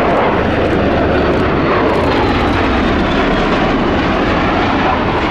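Bell Boeing CV-22B Osprey tilt-rotor flying past low with its nacelles tilted part-way up. Its two Rolls-Royce Allison AE1107C turboshaft engines and proprotors make loud, steady noise, with a faint high whine sliding slightly lower in pitch in the first half.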